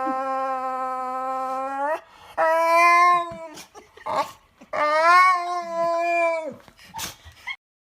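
Dog howling: one long, steady howl that ends about two seconds in, then two more howls pitched a little higher, each bending up and down slightly, with short breathy noises between them.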